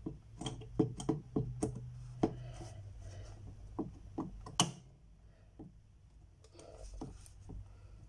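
Metal retaining tabs on the back of a picture frame being pressed down with pliers: a quick, irregular run of sharp clicks and taps, the loudest about four and a half seconds in, then a few fainter ones near the end.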